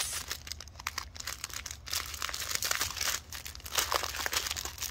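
Clear plastic packaging around a strip of diamond-painting gem bags crinkling and crackling as it is turned over and handled, a dense run of small crackles.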